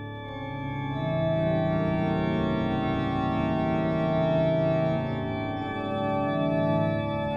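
Pipe organ playing sustained chords, growing louder about a second in, with the chord changing a couple of times.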